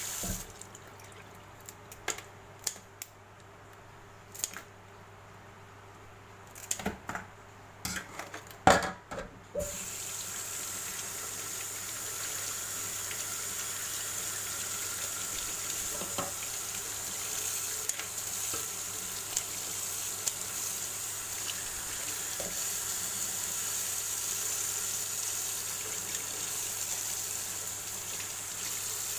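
Tap water running into a stainless steel sink as fresh blue swimming crabs are rinsed and cleaned by hand. For the first several seconds the water sound drops away and there are scattered sharp clicks and knocks from handling the crabs; after that the water runs steadily.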